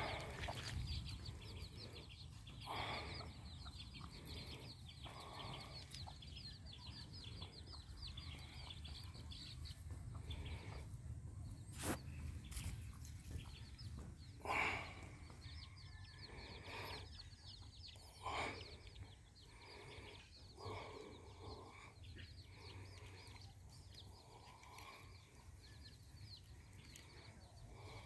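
Domestic hen clucking now and then, over a near-continuous patter of short, high peeping calls from her chicks. There is one sharp click about midway through.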